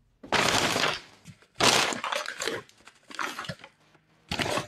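A paper grocery bag and the trash inside it crackling and crunching as it is pushed and crushed down by hand, in four bursts, the longest about a second.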